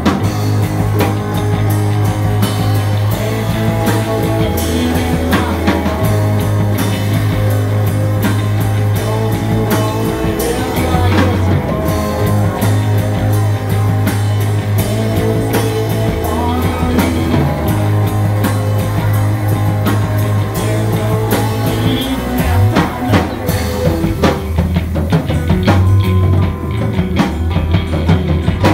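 Live country-rock band playing an instrumental stretch: electric bass guitar carrying a steady bass line, banjo and electric guitar, over a drum kit.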